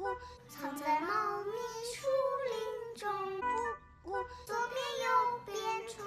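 Young children singing a children's song about a cuckoo, in short phrases with brief breaks between them.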